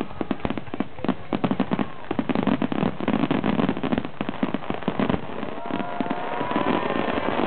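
Fireworks display: a dense, rapid run of bangs and crackles, many overlapping reports a second.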